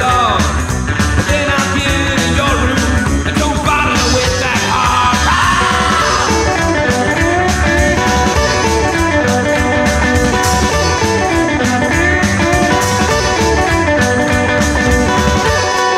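Rockabilly song recording: electric guitar over bass and drums with a steady beat.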